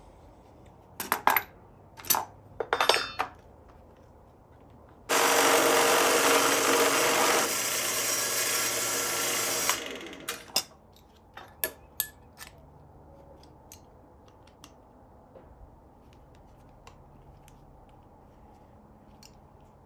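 A thin steel mounting plate clinks as it is handled, then a drill press runs for about five seconds, its twist bit boring through the plate, and winds down. A few light clicks of the plate being moved follow.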